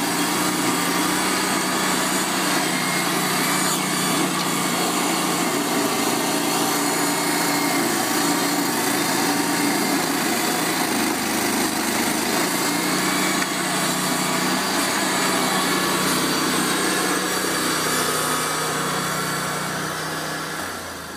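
Vermeer SC252 stump grinder running steadily under load, its carbide-toothed cutter wheel grinding tree roots and soil into chips. The sound fades out near the end.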